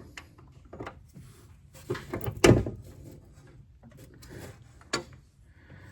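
Hand tools clinking and knocking against the valve rocker arms and adjusters of a Case 770 diesel engine while the tappet clearance is set. A handful of short metallic knocks, the loudest about halfway through.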